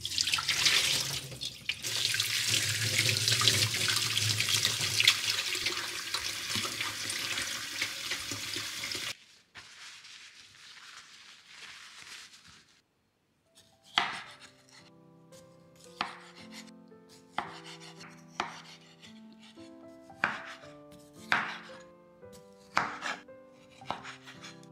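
Tap water running hard into a glass bowl of plums in a stainless-steel sink, then the faint rustle of paper towel patting the fruit dry. In the second half a kitchen knife cuts through plum flesh onto a wooden cutting board, about ten sharp chops, over soft piano music.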